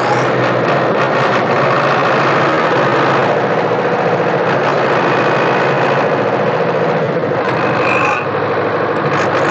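Belarus tractor's diesel engine running steadily under load as it pulls a brick-laden trailer that is stuck in mud.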